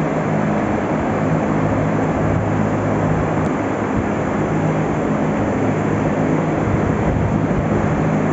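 Rows of large barn ventilation fans running together: a steady, loud drone with a low motor hum underneath.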